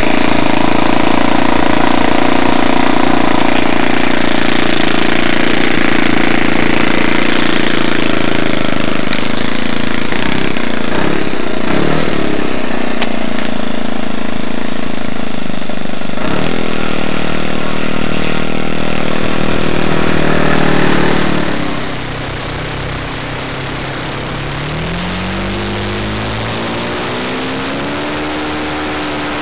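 O.S. .95 glow engine of a model aircraft running at high revs, its pitch wavering briefly a couple of times. About two-thirds of the way through it throttles back and the sound drops, then near the end the revs climb in a smooth rising pitch.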